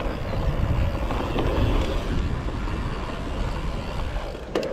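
Mountain bike rolling fast down a dirt trail: tyre noise and wind buffeting the camera microphone in a steady low rumble, with a sharp click near the end.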